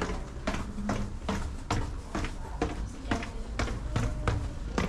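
Footsteps walking at a steady pace, about two steps a second, on a hard brick floor.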